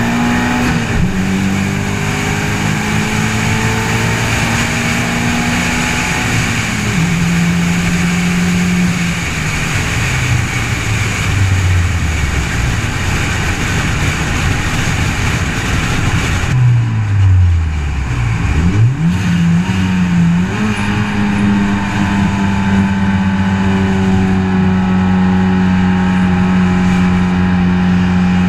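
Car engine and wind rush at highway speed, picked up by a camera mounted on the outside of the car. The engine note holds steady, drops away as the car slows in the middle, then climbs back and settles. The wind rush falls off sharply just past halfway.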